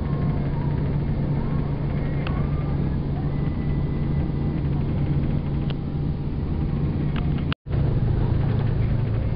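Steady drone of a vehicle's engine and tyres on the road, heard from inside the cab, with a constant low hum underneath. The sound cuts out for an instant about three-quarters of the way through.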